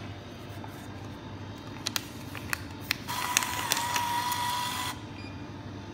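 Vending machine bill acceptor drawing in a banknote: a few light clicks as the note goes into the slot, then a steady motor whir for about two seconds that cuts off suddenly.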